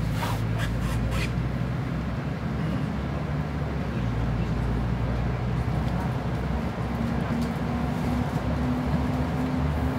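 Mercedes-Benz Citaro O530G articulated bus running along with a steady engine drone. A few clicks or rattles come in the first second or so. From about seven and a half seconds in, a tone climbs slowly in pitch as the bus picks up speed.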